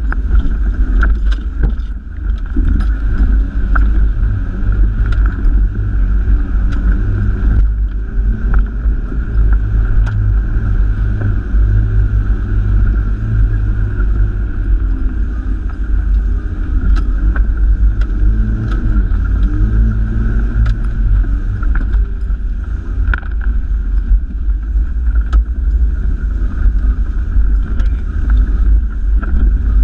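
Toyota Hilux 4WD driving along a rough, muddy dirt track, heard from inside the cabin: a steady low engine and road rumble with scattered sharp clicks and rattles.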